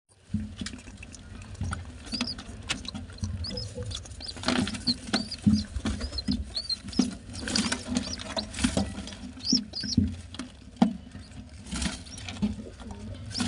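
Pigeon squabs begging with thin high-pitched squeaks while an adult feeds them beak to beak, over scuffling and feather rustling in the nest. The squeaks come in a quick string, mostly in the middle of the stretch.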